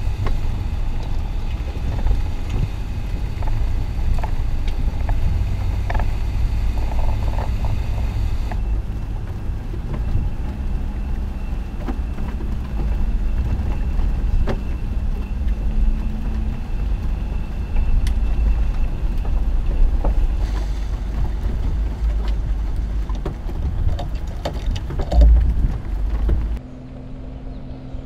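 Mercedes-Maybach G 650 Landaulet's V12 engine driving on a dirt track, heard as a heavy low rumble of engine, tyres and wind with scattered ticks of grit and stones. Near the end the rumble drops away to a quieter, steady low engine hum.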